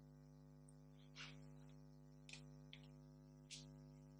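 Near silence with a steady faint electrical hum, and four faint short rustles as fingers handle an in-ear monitor and press its foam tip into the ear.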